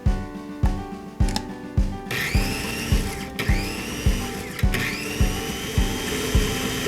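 Electric blender motor whirring up to speed about two seconds in, stopping a second later, then starting again and running on, over background music with a steady beat.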